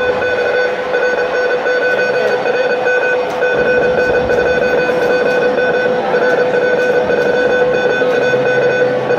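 Morse code (CW) sent at about 30 words per minute: a single steady-pitched beep keyed on and off very rapidly, played from a ham radio. Scattered clicks of manual typewriter keys sound over it as the code is copied.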